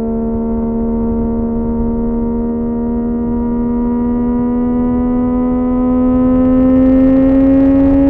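Sport motorcycle engine held at high revs, its pitch climbing slowly and steadily as it pulls, over low wind and road rumble.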